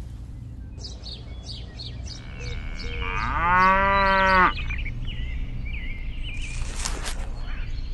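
A cow moos once, the call rising and then holding for a little over a second, over a run of short bird chirps at about four a second.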